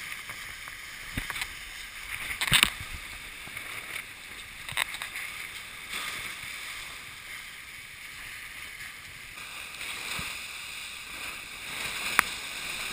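Tornado catamaran sailing fast in waves: a steady rush of water and spray along the hulls, broken by a few sharp slaps and knocks, the loudest about two and a half seconds in and another near the end.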